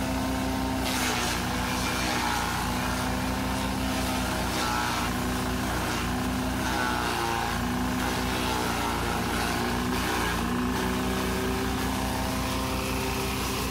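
Forage chopper driven by a small stationary engine, running steadily as dry corn stalks are fed into the blades. The engine pitch sags briefly a couple of times under load, over the rough rustle of the straw being chopped.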